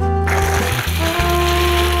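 Electric mixer-grinder switched on about a quarter of a second in and running with a steady noise, grinding coconut, nuts and spices toward a paste. Background music with a steady bass line plays throughout and is as loud as the grinder.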